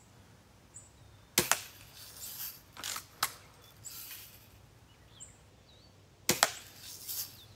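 BB gun shots and pellet hits on targets: a sharp crack about a second and a half in, a few softer clicks and knocks over the next two seconds, and two quick cracks a little after six seconds.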